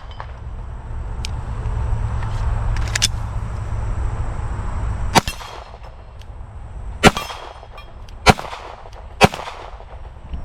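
9mm Glock 17 pistol firing four single shots, about one to two seconds apart, starting about five seconds in, with a fainter pair of cracks near three seconds in. A low rumble fills the first half.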